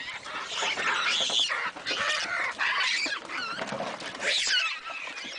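A troop of baboons calling at once: many high, wavering screams overlapping as they mob a car for food.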